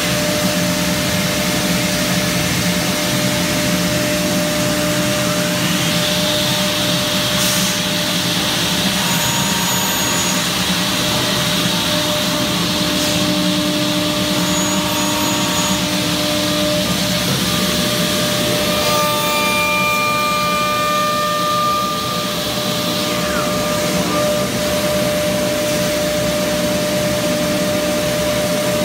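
PADE five-axis CNC router running with its dust extraction blowing steadily. The spindle whine rises in pitch about six seconds in, holds high, and winds down again a few seconds before the end.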